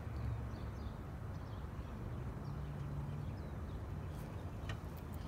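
Outdoor background sound: a steady low rumble with faint, scattered bird chirps, and a single light click near the end.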